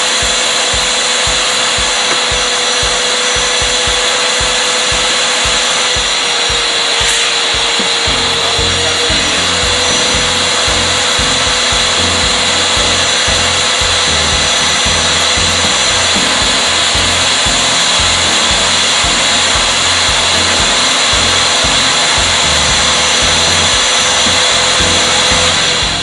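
WAP spray-extraction carpet and upholstery cleaner running, its vacuum motor giving a loud, steady whine over a hiss of suction as the upholstery nozzle is drawn across fabric. The whine sags slightly in pitch about seven seconds in.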